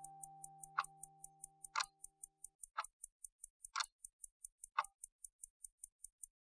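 Clock ticking quietly, about four light ticks a second with a louder tick once a second. A held musical chord under it fades out about two and a half seconds in, and the ticking stops just before the end.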